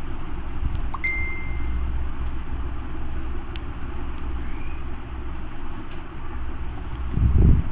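Steady low rumble with hiss. A short high ding sounds about a second in, and a brief low thump comes near the end.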